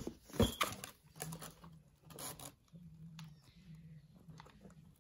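Cardboard pieces and a hot glue gun being handled while gluing: rustling, scraping and light taps, loudest in the first second and again about two seconds in.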